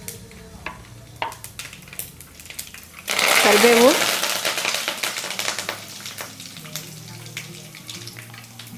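Mustard seeds crackling and popping in hot oil, then about three seconds in a sudden loud sizzle as curry leaves are dropped into the oil. The sizzle fades over the next few seconds.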